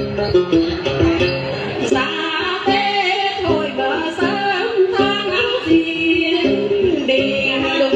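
Women singing a hát then folk song over plucked string accompaniment.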